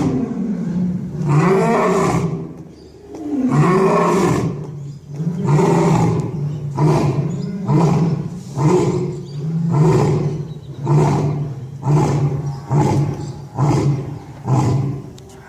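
A lion roaring in a full bout. It opens with two long roars that rise and fall, then runs into a string of about a dozen shorter roars that come quicker and quicker.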